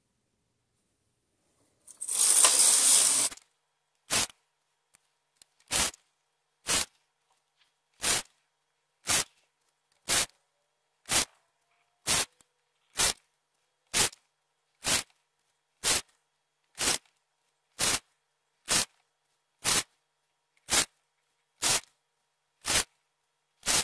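Brother 965i knitting machine knitting short rows for a sock heel: the carriage is slid across the needle bed once with a loud rasp of about a second and a half, then comes a run of about twenty short, sharp sounds, evenly about one a second.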